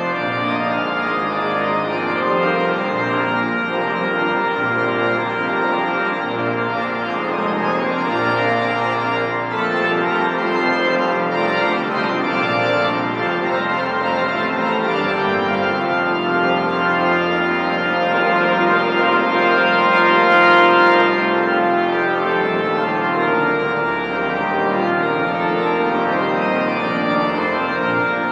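Large church pipe organ playing a loud postlude: full sustained chords over a pedal bass line that moves from note to note.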